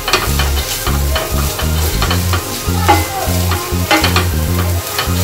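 Wooden spatula stirring and scraping chopped chicken, sweet corn and capsicum frying in a stainless steel pot, in repeated short strokes over a light sizzle. Background music with a low bass line plays underneath.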